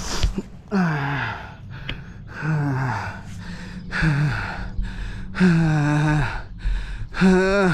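A winded man gasping for air, about five strained gasps with some voice in them, each falling in pitch, one near the middle drawn out longer. He has had the wind knocked out of him by landing on his side in a mountain-bike crash.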